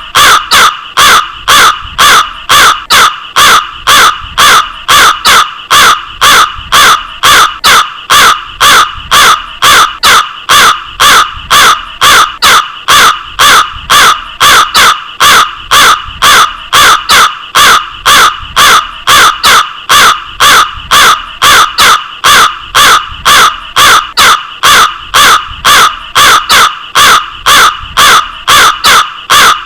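Crow cawing over and over in short, evenly spaced caws, about two or three a second, without a break.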